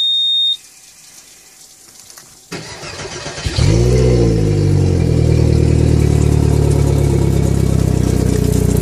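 Suzuki DF90 four-stroke outboard being started out of the water: a high steady beep from the warning buzzer stops just after the start, the starter cranks about two and a half seconds in, and the engine catches a second later, revs up briefly and settles into a steady idle. Out of the water it runs a little bit noisy.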